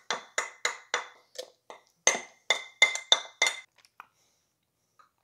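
Metal spoon knocking against a plate, about four sharp ringing clinks a second, as sticky cooked-down applesauce is knocked off it into a blender jar; the knocking stops a little under four seconds in.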